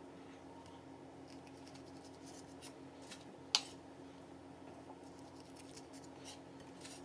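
Kitchen knife cutting cooked shrimp in half on a bamboo cutting board: faint light taps and clicks of the blade on the wood, with one sharper knock about three and a half seconds in.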